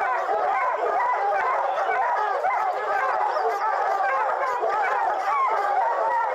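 A pack of bear hounds baying without a break, many voices overlapping: the treed bay of dogs holding a black bear up a tree.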